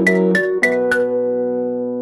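Background music: a few quick bell-like struck notes over a keyboard chord, then the chord held and slowly fading through the second half.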